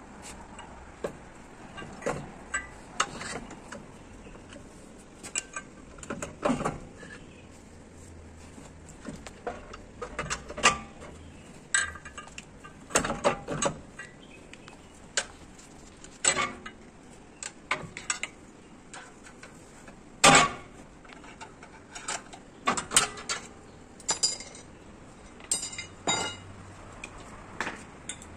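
Scattered sharp metallic clinks and knocks as a lined drum-brake shoe from a bus's air brake is handled and fitted against the wheel hub and brake anchor, with one louder knock about two-thirds of the way through.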